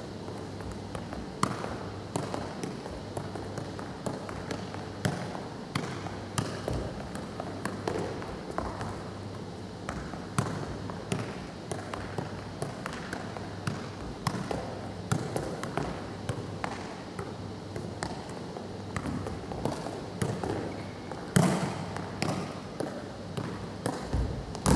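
A football being juggled: irregular dull taps as feet, knees and head strike the ball, with a louder thump a few seconds before the end. A low steady hum runs underneath.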